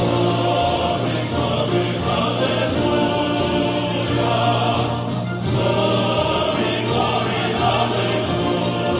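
Title music: a choir singing sustained chords over a steady low drone, with a brief break about five seconds in.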